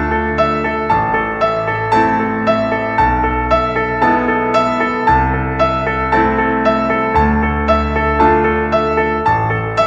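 Background music: a piano or electric-piano tune with regular notes over sustained bass chords.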